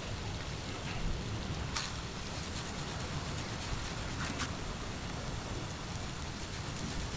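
Food cooking over a campfire: a steady sizzling hiss with scattered crackles and pops, over a low uneven rumble.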